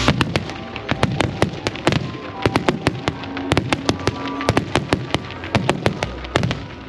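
Fireworks barrage going off in rapid volleys of sharp cracks and bangs, several reports a second, thinning out near the end.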